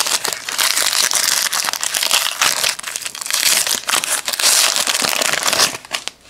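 Foil wrapper of a Panini Pinnacle basketball card pack crinkling loudly as it is opened by hand, dying away about six seconds in.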